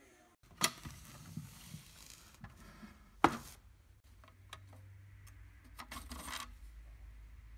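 Steel drill bits clinking and scraping in a metal drill-bit index case as a hand picks one out, with a few sharp metallic clicks, the loudest about three seconds in.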